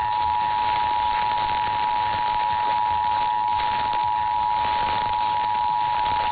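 Emergency Alert System attention signal: two steady tones near 1 kHz (853 and 960 Hz) sounding together without a break, over a background hiss of broadcast noise. It is the alert tone that announces an emergency message, here a tornado warning.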